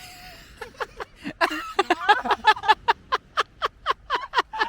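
People laughing in a quick run of short, pitched bursts that start about a second in.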